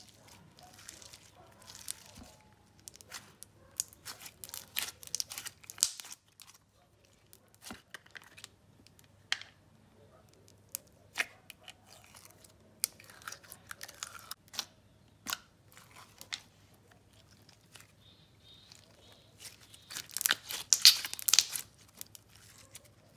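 Thick clear slime being stretched, folded and squished by hand, giving off scattered sticky clicks and crackles, with a louder, denser run of crackling near the end.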